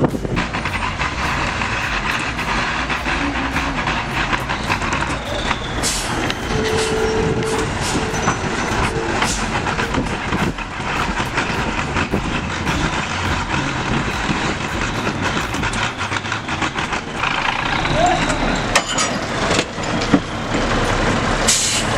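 Heavy truck engine running under load, with repeated knocks and clatter and people's voices now and then.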